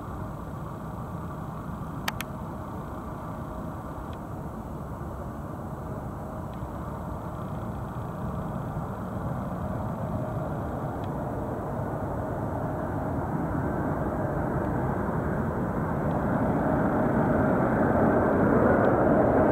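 Boeing 747-400's four jet engines on final approach: a steady rumble with a faint whine that grows steadily louder as the airliner comes nearer.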